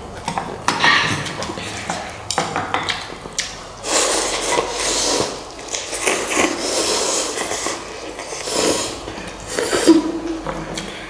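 Instant noodles being eaten fast from bowls: utensils clicking and clinking against the bowls, then repeated slurps of about a second each.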